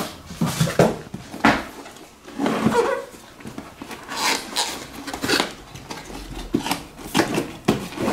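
A cardboard box handled on a wooden table: irregular rubbing and scraping of cardboard, with several knocks as it is set down and gripped.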